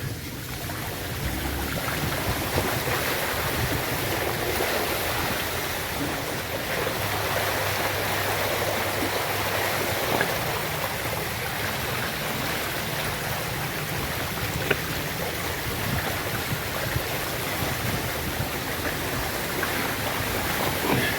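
Steady rushing of water, with a faint low hum underneath around the middle.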